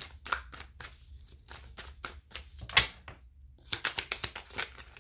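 A deck of tarot cards being shuffled by hand: a run of quick, irregular papery flicks and snaps, with one sharp snap a little past the middle and a rapid flurry near the end.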